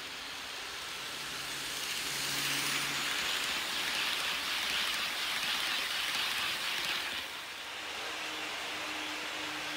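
HO-scale model train, a KATO EF58 electric locomotive pulling 12-series passenger coaches, running on its track: a steady rolling hiss that grows louder as the coaches pass close by, then falls away about seven seconds in as the train moves off.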